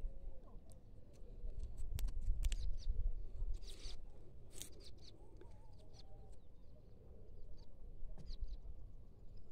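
Small clicks and scrapes of hands working a grafting knife and a roll of electrical tape at a taped graft on a grapevine trunk, with a brief rustle about four seconds in and a low rumble underneath.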